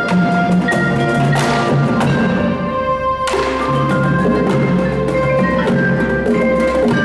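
Indoor percussion ensemble playing: mallet keyboards ring with held pitched chords that change a few times, over a steady pattern of drum strokes.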